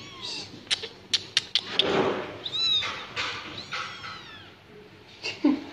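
Very young kittens mewing repeatedly in high, thin calls that rise and fall, with a quick run of about five sharp clicks about a second in.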